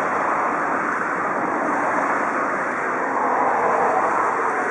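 Steady rushing hiss from the DR Class 18 201 steam locomotive as it stands in steam on the turntable, mixed with the murmur of a large crowd.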